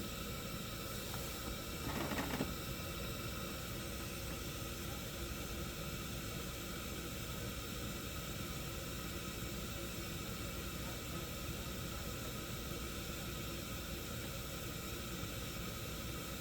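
A steady, even hiss with faint steady tones, broken only by a brief short noise about two seconds in.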